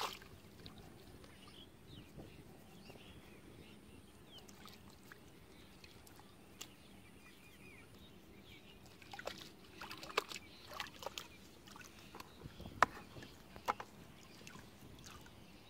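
Shallow muddy water sloshing and splashing as a fine mesh net is worked and lifted out of it, with a run of sharper splashes and drips in the second half.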